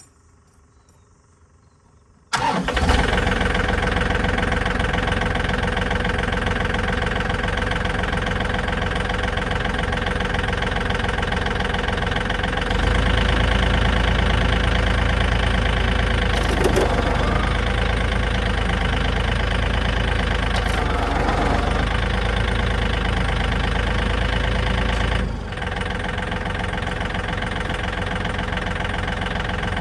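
Diesel tractor engine, started once its glow plugs are warmed, catching abruptly about two seconds in and then running steadily. Its low throb grows louder about halfway through and eases back near the end.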